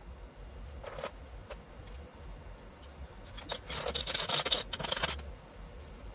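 Rubbing and scraping from hands working at the ATV's rear tyre and wheel, loudest for about a second and a half midway through, over a low steady hum.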